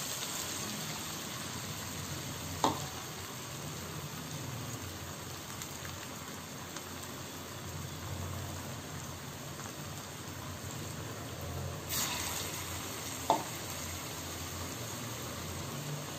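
Vadai deep-frying in hot oil in a kadai: a steady sizzle of bubbling oil that briefly grows louder about twelve seconds in, with two short clicks.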